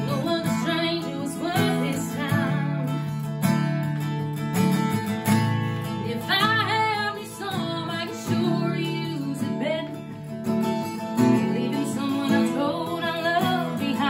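A woman singing a country song over her own strummed acoustic guitar, with a couple of long held notes that waver.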